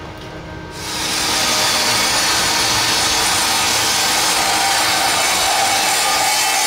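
Vertical panel saw's circular blade cutting through a sheet of 1-inch marine board: a loud, steady sawing noise that starts about a second in.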